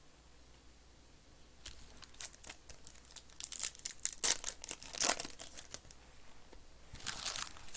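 Trading-card packaging being torn open and handled: crinkly plastic wrapper rustling in irregular bursts, loudest about four and five seconds in, with another burst near the end.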